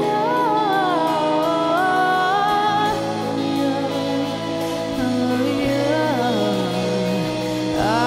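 Electropop song: a gliding, held vocal melody over sustained keyboard chords and a low bass line, the bass moving to a deeper note near the end.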